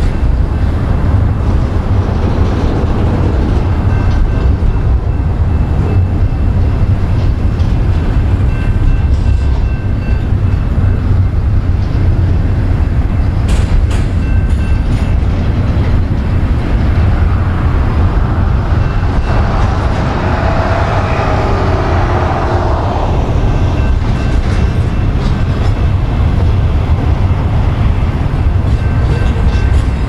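Double-stack intermodal container train rolling steadily past: a continuous low rumble and rattle of wheels on rail and cars. A whining tone swells and fades about two-thirds of the way through.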